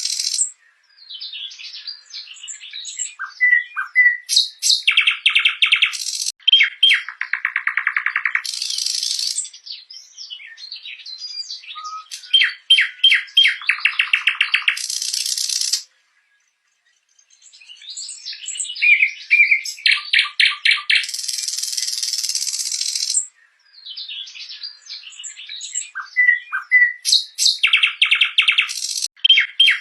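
Nightingale singing: a run of song phrases built from rapid repeated notes, short whistles and dense rattling trills, each phrase ending and the next starting after a brief pause.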